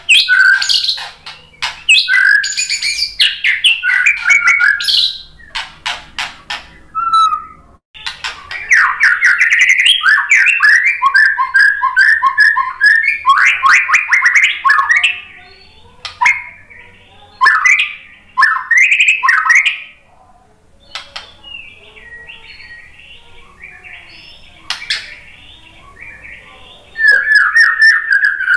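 White-rumped shama singing loud, varied phrases with sharp clicks and quick whistled notes. After a pause of about two seconds it sings a long run that includes a rapid repeated trill, then gives sparser, softer phrases and a loud falling phrase near the end.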